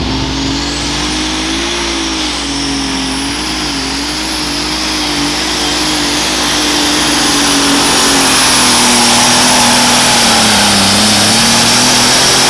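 John Deere 8330 super stock pulling tractor's turbocharged alcohol engine at full power pulling the sled, with a high turbo whine that climbs in the first second and then holds. The engine note wavers up and down and grows louder about halfway through.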